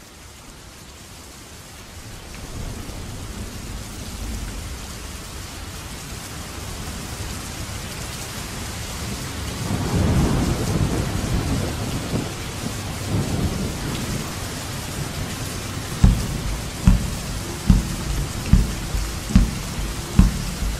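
Steady heavy rain fading in, with a deep rolling thunder rumble that swells to its loudest about halfway through. Near the end a deep drum beat starts, about one thump a second.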